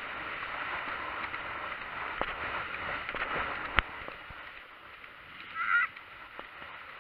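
Rushing wind noise on a helmet camera's microphone while riding a horse across a grass field, easing off about four seconds in. A single sharp knock comes just before that, and a brief honk-like call is heard near six seconds.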